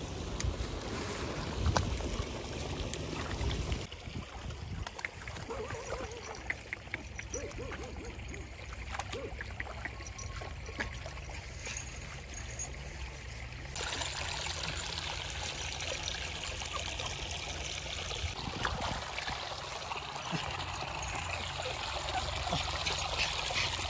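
Shallow stream trickling over stones, a steady rushing hiss that grows fuller about halfway through. In the first few seconds, water splashing as a small dog swims.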